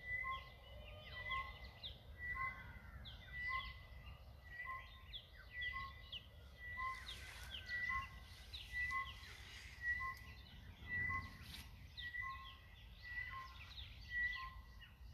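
Birds calling: one repeats a short, steady note over and over at an even pace, while others give quick chirps, over a faint low rumble.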